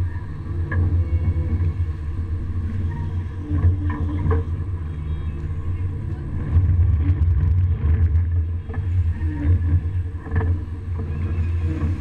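Fishing boat's engine running steadily with a low drone, with a few sharp knocks and clatters from gear on the deck.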